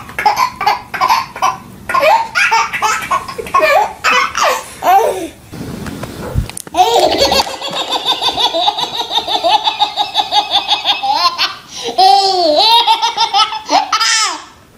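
Babies laughing: short repeated belly laughs for the first five seconds, then after a brief break about six seconds in, long runs of high, rapidly pulsing baby laughter.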